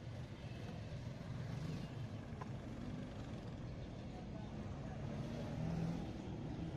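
Street traffic ambience: a steady low engine rumble with a faint murmur of voices.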